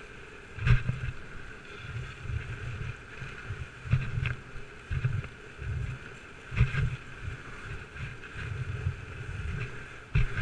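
Dog sled gliding along a packed snow trail: a steady hiss of the runners on snow, with irregular low thumps and a few sharper knocks as the sled bumps along.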